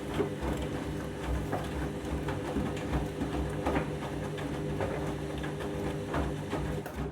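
Candy washing machine running a rinse with a deep water level: the motor hums steadily as the drum turns, with irregular soft splashes of water and laundry tumbling in the drum.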